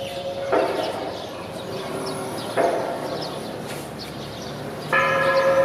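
A loud, steady held horn-like tone cuts off about half a second in as a struck hit rings out briefly; a second hit follows about two seconds later. Birds chirp faintly, and the held tone starts again near the end.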